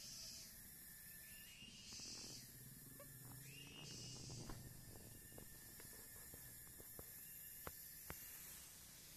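Near silence: faint outdoor background with soft hissing pulses about every two seconds and a couple of light clicks near the end.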